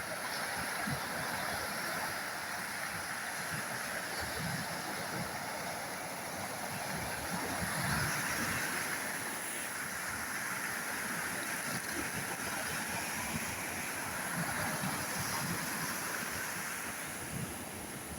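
Sea surf washing onto the shore as a steady rush of water, with wind and scattered low thuds of wind on the microphone.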